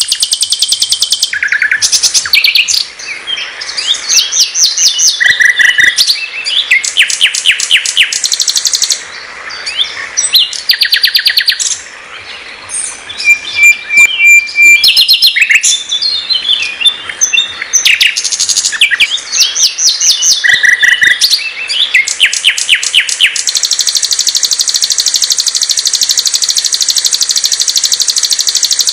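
A sikatan londo (nightingale) singing a rich, varied song of quick phrases: rapid repeated notes, fast trills and short clear whistles, with one held whistle about halfway through. Near the end it goes into a long, unbroken high trill.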